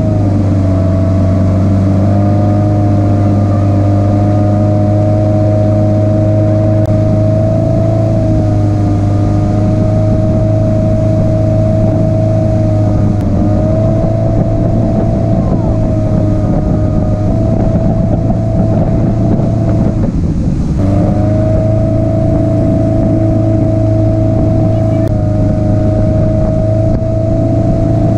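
Towing motorboat's engine running steadily at speed, over the rush of its wake. About two-thirds of the way through the engine note drops away for about a second, then comes back.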